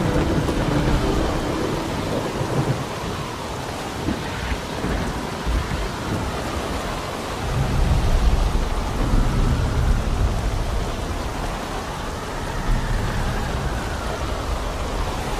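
Steady heavy rain with rolling thunder; the rumbling swells loudest about eight seconds in.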